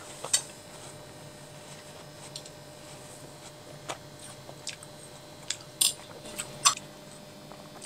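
Eating watermelon with forks: a handful of short clicks of forks against plates, spread over several seconds, with soft chewing.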